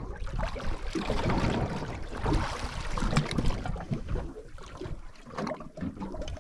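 Wind on the microphone and water lapping against a small boat's hull, with a few light clicks from handling the rod and reel.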